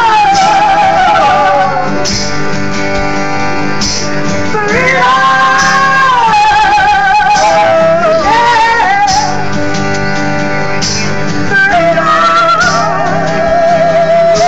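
Live acoustic band: a singer holds long, wavering, sliding notes with no words over steady acoustic guitar and keyboard chords. A short high hit sounds about every two seconds.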